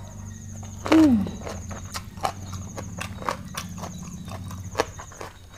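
Close-miked slurp of a mouthful of rice noodles about a second in, with a short squeal falling in pitch, followed by wet chewing and lip smacks.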